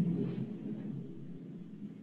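Low, steady room noise heard over a video call, fading down as the speech stops.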